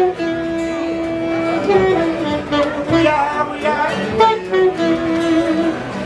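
Live band music: guitar being played along with a saxophone, with long held melody notes.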